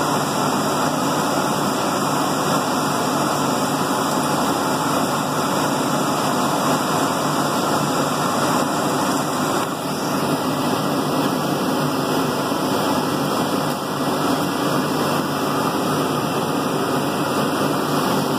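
Laser cutter's exhaust and air-assist fans running with a steady rushing noise.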